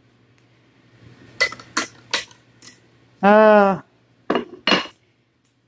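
A spoon clinking and tapping against a ceramic coffee mug while coffee is being made, several separate clinks. About three seconds in there is a brief pitched sound, the loudest thing heard.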